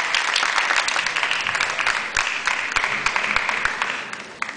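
Audience applause: many hands clapping together, fading away near the end to a few scattered claps.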